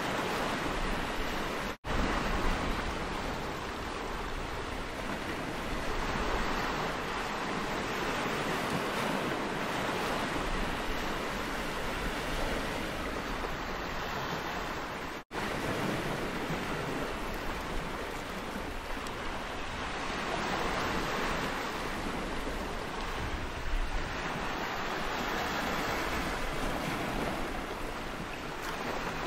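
Sea surf washing steadily onto a stony beach, with wind.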